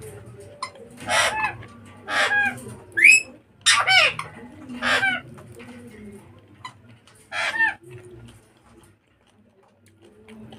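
Chickens calling: six or seven short, loud clucking squawks in the first eight seconds, one of them a quick upward-sliding call. Under them are soft sounds of food being mixed by hand on a plate.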